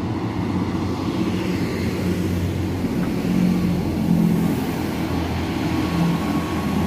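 Class 158 diesel multiple unit passing through the station: a steady diesel engine drone that swells slightly about halfway through.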